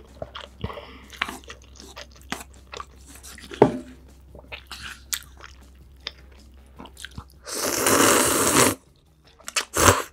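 Close-miked chewing of spicy instant ramen noodles, with many small wet mouth clicks. About three quarters of the way in comes a loud slurp of noodles lasting about a second, then a short sip of broth from the bowl near the end.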